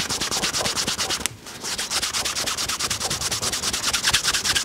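Canvas cloth rubbed in fast back-and-forth strokes along a leather belt's edge, burnishing it with burnishing agent to slick the edge over. There is a short break a little over a second in.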